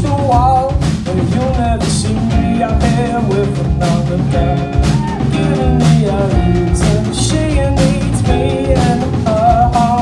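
Rock band playing live: a sung vocal over two electric guitars, electric bass and a drum kit.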